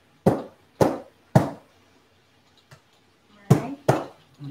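Kitchen knife chopping through ears of corn on a cutting board: three hard chops about half a second apart, then two more near the end.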